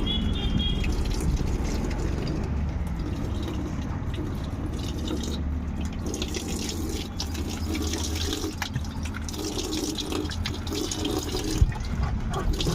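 Water running and pouring steadily.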